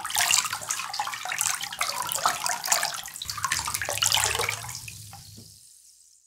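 Water sound effect, dense with small crackles, with a low hum joining about three seconds in; it fades out over the last second or so.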